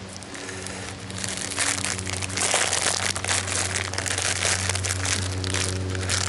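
Old plastic bag crinkling and crackling as it is pulled from the dirt and handled. It gets louder about a second and a half in, over a faint steady low hum.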